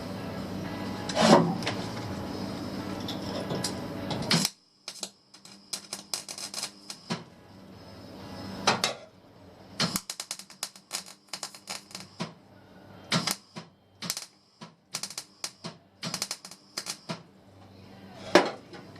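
Welder laying short tack welds on car floor sheet metal: brief bursts of rapid crackling, each a fraction of a second to a second long, with quiet gaps between them. The first few seconds hold a steadier hum with a few loud knocks.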